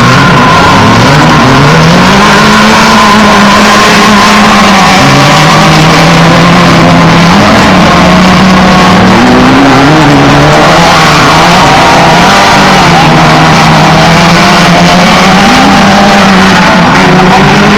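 Engines of off-road race trucks and buggies running loud, the engine note rising and falling in steps every few seconds as they rev and accelerate.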